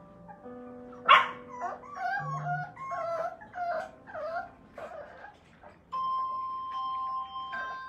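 English bulldog puppies yapping and whining in short high calls, with one loud yelp about a second in. From about six seconds, background music with held chime-like notes takes over.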